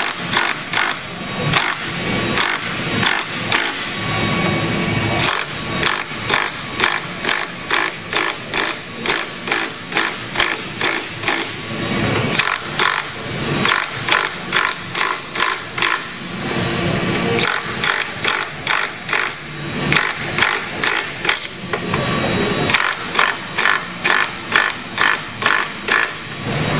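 Cordless impact wrench running under load, its hammering coming in rapid, evenly repeating pulses, with a few short stretches of steadier running between.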